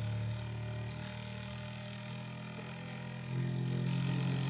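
Bambu Lab A1 Mini 3D printer running its mechanical resonance calibration: the motors shake the print head at set frequencies, giving a steady electronic hum. The pitch changes, and the hum grows louder about three seconds in as the test moves to another frequency.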